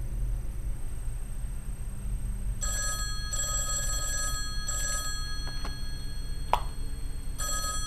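Desk telephone ringing with an electronic ring of steady high tones: one ring of about two seconds starting nearly three seconds in, and a second ring beginning near the end. A single sharp tap sounds between the two rings.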